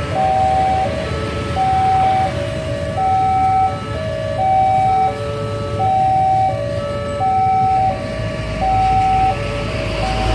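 Electronic warning alarm of a railway level crossing sounding a steady two-tone high-low pattern, one high-low cycle about every 1.4 seconds, which tells road users that the barrier is down and a train is coming. Idling road traffic runs underneath, and a heavy engine rumble grows near the end.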